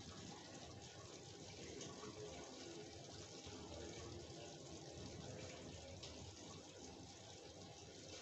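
Chicken pieces sizzling and bubbling gently in their own juices in a kadai on the stove: a faint, steady sizzle.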